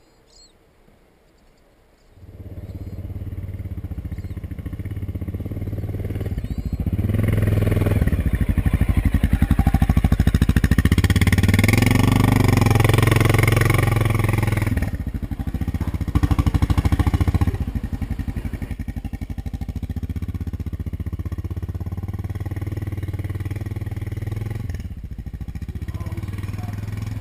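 Honda XR650L's single-cylinder engine running under way, coming in about two seconds in and growing louder, with a dip about halfway through before it settles steady.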